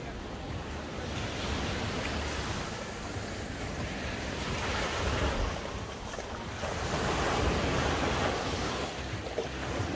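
Small waves breaking and washing up a sandy beach, swelling about three times. A low rumble of wind buffets the microphone throughout.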